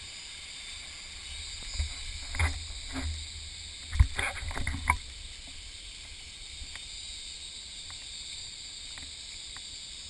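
Shallow rocky stream running over stones, a steady rush of water, with a few sharp knocks and thumps between about two and five seconds in.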